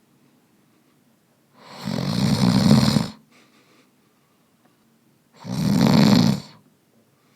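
A person snoring in deep sleep: two long snores about four seconds apart, each swelling up over about a second, with quiet breathing between.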